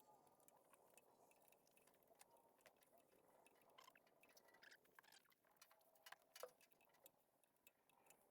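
Near silence, with faint scattered light clicks and taps.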